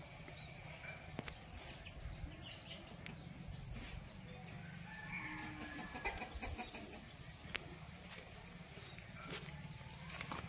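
Birds chirping: short, high calls that fall in pitch, two about a second and a half in, one near four seconds, and three in quick succession around six and a half seconds. A steady low rumble of background noise runs underneath.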